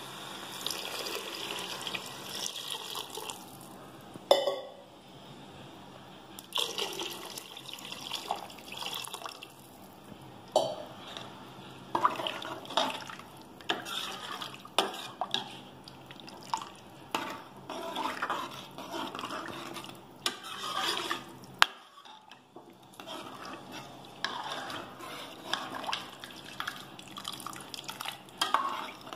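A steel ladle stirring vegetables and water in a pressure cooker, the liquid sloshing, with the ladle scraping and clinking against the pot in many short irregular strokes.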